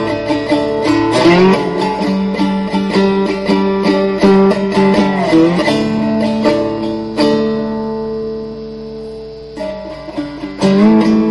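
Three-string cigar box guitar played with a Mojobone slide: picked notes with sliding glides into the notes. About seven seconds in, one note is held and fades quietly before the picking picks up again near the end.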